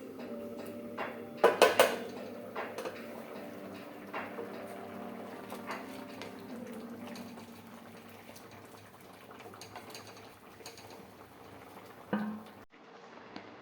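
Kitchen utensils clinking and knocking against pots and dishes during cooking, with three loud knocks in quick succession about two seconds in and scattered lighter clicks after.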